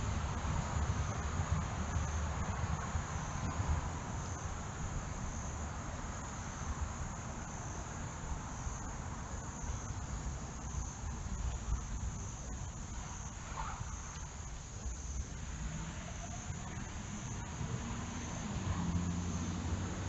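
A steady, high-pitched chorus of insects, crickets or katydids, running without a break, over a low rumbling noise. A brief faint chirp sounds about two-thirds of the way through.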